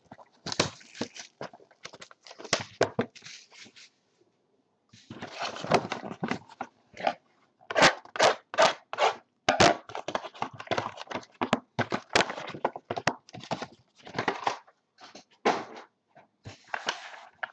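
Plastic shrink-wrap torn off a sealed trading-card box, then a knife slitting the box open and cardboard scraping and rustling; a run of irregular crackles and scrapes with a short pause about four seconds in.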